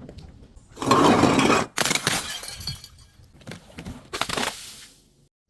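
Glass bottle breaking and crunching, with the loudest burst of shattering about a second in, followed by several shorter crunches of glass.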